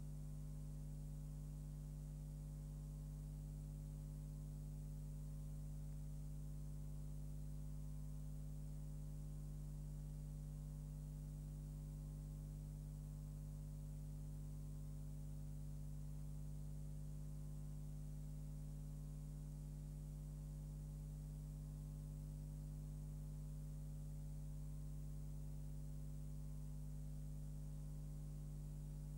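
Steady electrical mains hum with no other sound, unchanging throughout.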